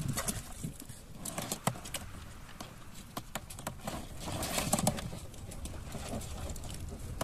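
Scattered clicks and knocks from handling gear and catch in a small fishing boat, with a few duller low bumps, the loudest about a second and a half in and again near the middle.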